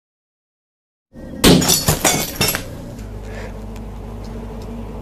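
Silence for about a second, then a glass-shattering sound effect: a cluster of sharp crashes lasting about a second. It gives way to a steady low hum.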